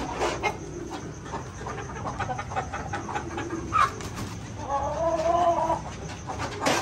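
A flock of Heera Aseel chickens: scattered scuffs and pecking clicks, then one drawn-out call about five seconds in.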